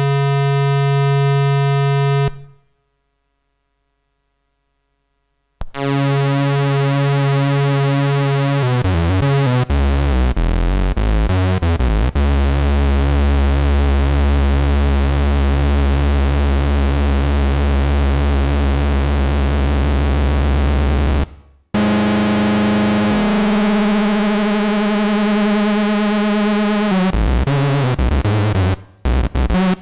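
Home-built analogue synthesizer (Ad-vantage AD-3M) playing buzzy held notes. After a pause of about three seconds, a note slides down into a deep bass drone that is held for about ten seconds. Then comes a higher note whose tone brightens and darkens, breaking into short choppy stutters near the end.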